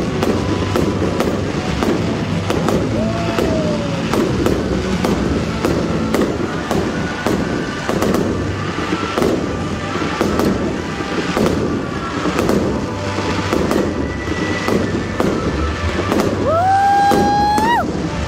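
Aerial fireworks display: a steady barrage of shell bursts, bangs and crackle, with music playing alongside.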